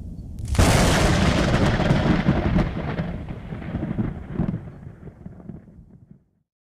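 Thunder: a low rumble, then a sharp clap about half a second in that rolls and fades over several seconds before cutting off suddenly.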